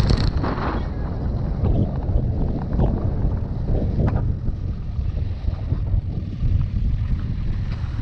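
Wind buffeting the microphone, a steady low rumble, with a few short street sounds in the first four seconds.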